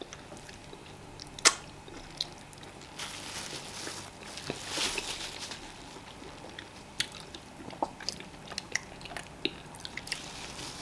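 Close-miked eating sounds of fufu and vegetable soup: chewing and mouth clicks, with a sharp click about a second and a half in and a brief stretch of wetter, noisier eating sound in the middle.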